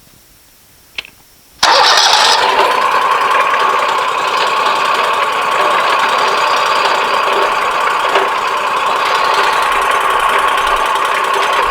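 An engine starting: a short sharp sound about a second in, then it catches abruptly and runs steadily with a high, even whine.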